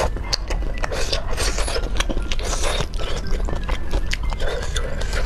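Close-miked chewing of thick stir-fried rice noodles, with many wet mouth clicks and smacks, while chopsticks scrape through the noodles on the plate.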